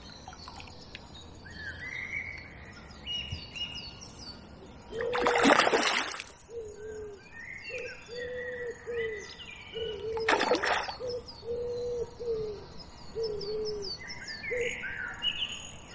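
Songbirds chirping and singing, with a pigeon cooing a low, evenly repeated note through the middle. Two loud splashes in the lake margin stand out, a longer one about five seconds in and a shorter one about ten seconds in.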